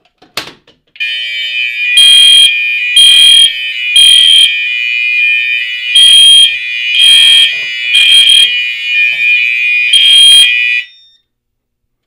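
A pull station handle clacks as it is pulled. About a second later the fire alarm system sounds: a steady high-pitched tone with louder alarm blasts over it in the temporal-three evacuation pattern. There are three short blasts a second apart, a pause, three more, and one more before it all cuts off suddenly near the end.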